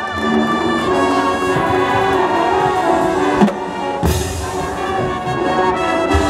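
High school marching band playing its field show: sousaphones, mellophones, trumpets, clarinets and saxophones hold sustained chords over the drumline. A loud percussion crash comes about four seconds in.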